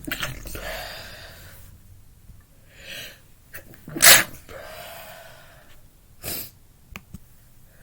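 A woman sneezing repeatedly in a sneezing fit: a sneeze right at the start, the loudest about four seconds in, and a shorter burst a little after six seconds, with audible breaths in between.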